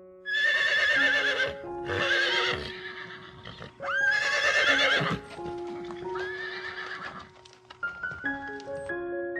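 Four loud, wavering high-pitched animal calls, each about a second long, the third sweeping up steeply at its start, over soft piano music.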